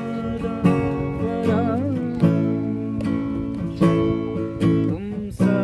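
Acoustic guitar strummed in a steady rhythm, with a chord stroke about every three-quarters of a second, and a voice singing in short stretches over it.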